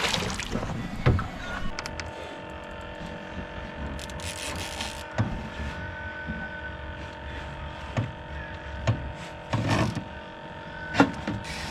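A small electric motor on a boat switches on about two seconds in and hums steadily, with a few scattered knocks against the hull and gear.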